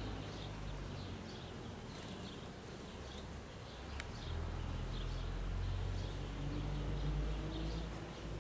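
Honey bees buzzing around an open hive, a steady low hum over a low rumble, with a single sharp click about four seconds in.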